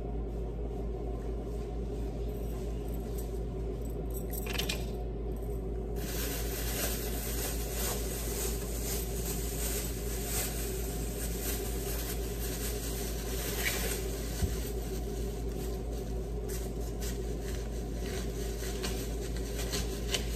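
Plastic bag rustling and crinkling as it is handled, with small clicks and taps, starting about six seconds in. A steady low hum runs underneath.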